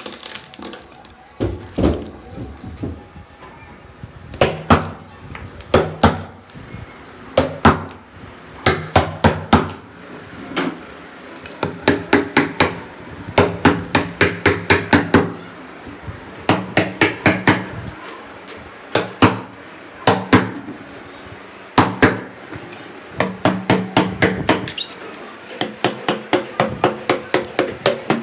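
Hand hammer striking repeatedly in quick runs of several blows, with short pauses between the runs.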